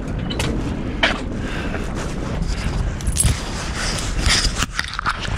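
Handling noise: the camera rubbing and scraping against a knitted scarf and jacket fabric, with scattered knocks and rustles.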